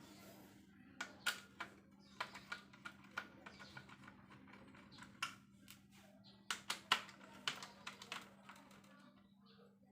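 Irregular sharp clicks and taps, a few strong ones clustered about one second in and again about six and a half to seven and a half seconds in, over a faint steady low hum.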